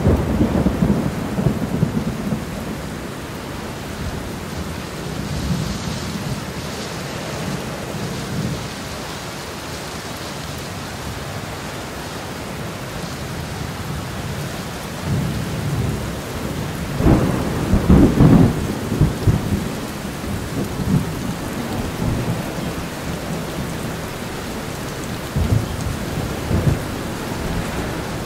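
Steady rain falling on garden foliage, with several low rolls of thunder; the longest and loudest rumble comes about two-thirds of the way through.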